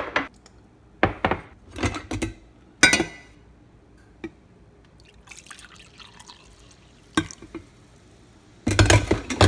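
An orange ceramic mug set down on a kitchen counter with a few sharp knocks and clinks, then coffee poured into it from a carafe, a soft splashing hiss lasting about a second and a half. A louder clatter of knocks comes near the end.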